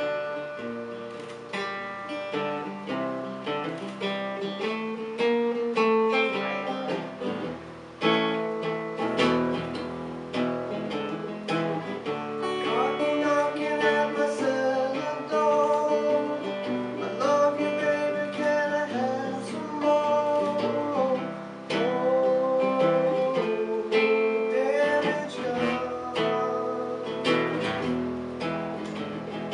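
Steel-string acoustic guitar strummed and picked in a live solo performance, with a man's singing voice joining over it about twelve seconds in.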